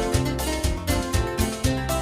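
Background music with a steady beat: bass notes under pitched instrument melody.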